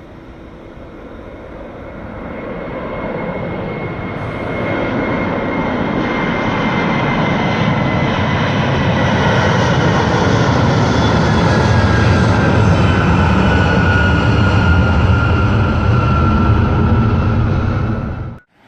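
Airliner passing low overhead: the engine rumble and hiss grow steadily louder over about ten seconds and hold, with a high whine that falls slowly in pitch as it goes by. The sound cuts off suddenly near the end.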